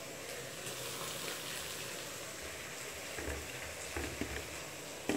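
Sliced onions, dried red chilies and ginger-garlic paste sizzling steadily in hot oil in a pan, with a few light knocks of a steel spoon stirring them about three to four seconds in.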